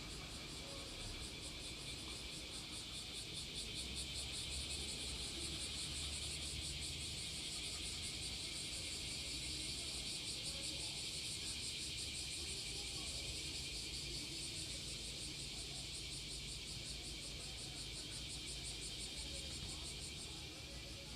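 A steady chorus of insects: a high, fast-pulsing chirr that swells a little in the middle, with a low rumble beneath it.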